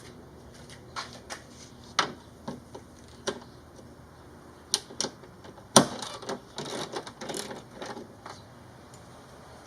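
Irregular clicks and knocks of a wrench with a 10 mm socket and the bolts being handled while the spoiler's bolts are taken out. The loudest knock comes about six seconds in, followed by a quick run of rattling clicks.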